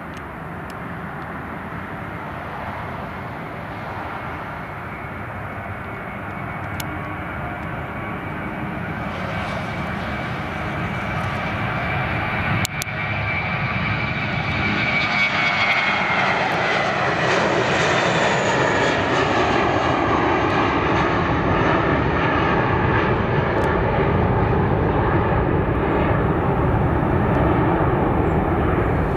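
Airbus A320 jet engines at takeoff thrust through the takeoff roll, lift-off and climb-out, growing steadily louder over the first half. About halfway in a whine drops in pitch as the aircraft passes, and the engines then run on as a loud, steady noise while it climbs away.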